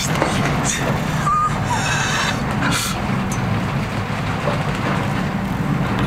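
Steady low drone of a ship's engine under stormy wind noise, with several short hissing bursts in the first three seconds as sea spray hits the bridge windows.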